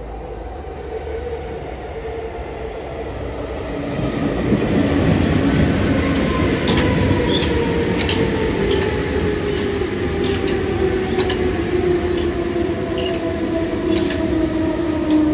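Electric train running into the station, getting louder from about four seconds in, its motor whine falling steadily in pitch as it slows. A run of sharp wheel clicks over rail joints comes over the rumble.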